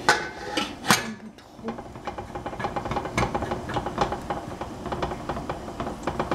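Stainless steel pressure cooker lid set down on the pot with two sharp metal clanks in the first second, followed by a run of rapid light clicks and rattles.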